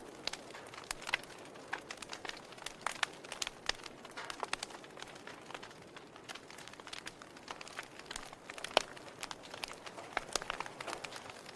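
Wood fire in a fireplace crackling: irregular snaps and pops of burning firewood over a soft steady hiss, with one louder pop about nine seconds in.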